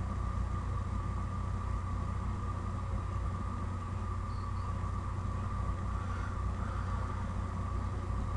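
Steady low hum and hiss of background noise picked up by a desk microphone, unchanging, with no distinct events.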